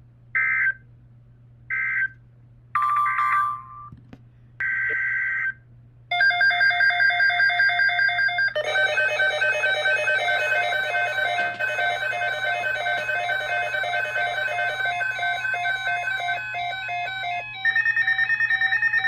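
Emergency Alert System signalling on weather radio: four short data bursts of screechy tone, then a long, loud alert tone that warbles back and forth between pitches and ends on a steadier, higher tone.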